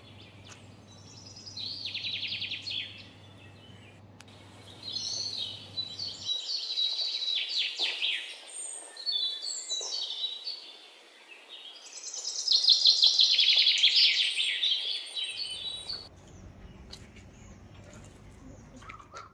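Small birds calling in bouts of rapid chattering trills, three main bouts, the loudest from about twelve to fifteen seconds in.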